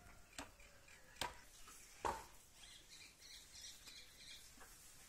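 Birds chirping faintly in the background, with three sharp knocks in the first two seconds, the last one the loudest.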